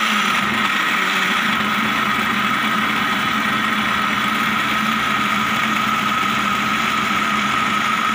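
Electric countertop blender motor running steadily, pureeing chilies, shallots, garlic and kencur with a little water into a thin spice paste; a constant whine with no change in speed.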